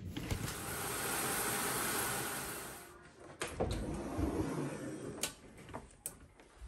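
A steady rushing noise for about the first three seconds, then a run of clicks and knocks as a bifold closet door is opened onto a top-loading washing machine and clothes are handled into the drum.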